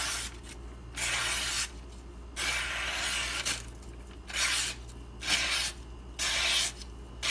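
Emerson A100 knife blade making a series of slicing cuts through a test material, about six rasping, hissing strokes with short pauses between them, as the freshly thinned and convexed edge is tested for how it cuts.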